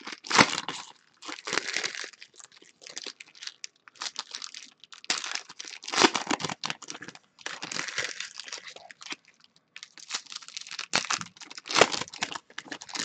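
Foil and clear plastic trading-card pack wrappers crinkling and tearing as packs are ripped open by hand, in quick, irregular bursts.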